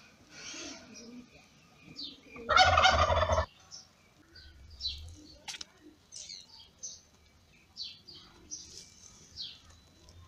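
Newborn kittens mewing: many short, thin, high-pitched squeaks scattered through. About two and a half seconds in, a much louder burst lasting about a second covers them.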